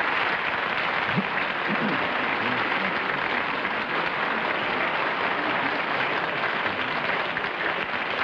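Studio audience applauding steadily, with a voice briefly heard under it one to two seconds in.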